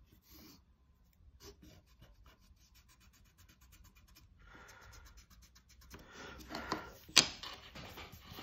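Pencil ruling lines on paper along a metal straightedge: faint, quick scratching strokes, then louder rubbing and handling toward the end, with one sharp click a little past seven seconds.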